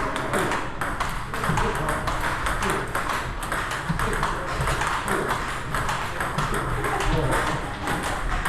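Table tennis balls being struck, clicking off rackets and the table in a quick, steady run of hits during flick practice.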